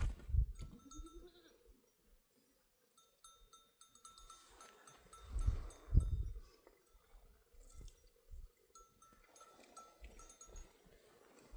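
Flock of goats and sheep with bells ringing and an occasional bleat. A few low thuds, the loudest about five and six seconds in.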